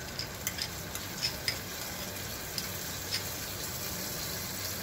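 Mutton sizzling steadily in a clay handi on a gas burner as curd is added, with a few light clicks of a spoon against the pot.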